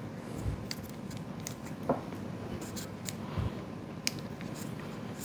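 Metal cookie scoop scraping and clicking in a bowl of stiff peanut butter and oat dough as it is packed, with a couple of soft thumps and a brief squeak about two seconds in.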